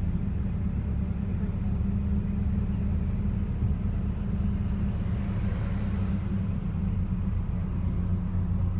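Ataman bus driving along, heard from inside the passenger cabin: a steady low engine drone with road and tyre noise, with no clear gear change or stop.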